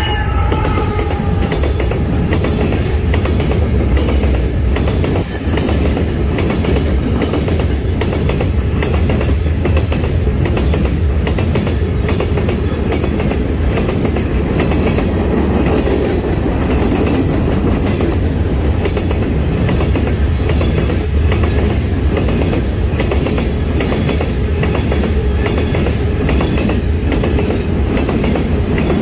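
A freight train's cars rolling past with a steady rumble, the wheels clicking repeatedly over rail joints. A falling tone dies away in the first second.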